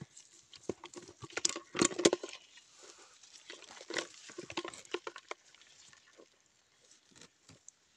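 Live eels and small fish flapping and splashing in shallow water in a plastic bucket as they are shaken out of a mesh trap, a run of short wet patters that dies away after about five seconds.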